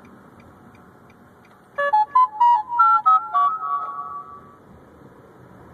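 A short electronic jingle of about ten quick notes, loud and clear like a phone ringtone or notification tune, starting about two seconds in and dying away by four and a half seconds, over a low steady background hum.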